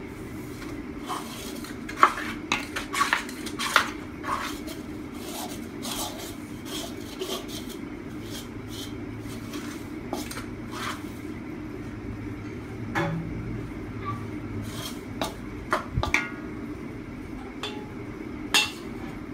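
Hands mixing flour in a large aluminium basin: irregular clinks, knocks and scrapes against the metal bowl, over a steady low hum.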